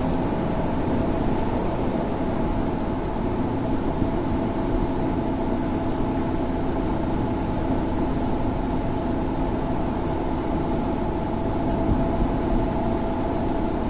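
Steady road and engine noise of a car cruising on an expressway, heard from inside the cabin: an even rumble with a constant drone.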